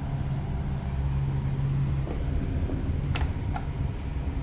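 A steady low mechanical hum over a low rumble, the hum cutting off about two seconds in, then two short sharp clicks about a third of a second apart.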